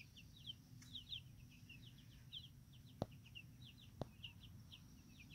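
Chicken chicks peeping softly: quick high chirps that slide down in pitch, several a second. Two sharp clicks sound about a second apart midway.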